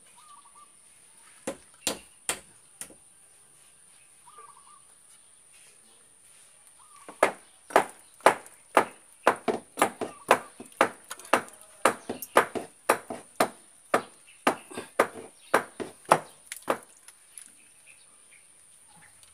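Sharp knocks: a few single ones at first, then a steady run of about two a second that starts about seven seconds in and stops about ten seconds later.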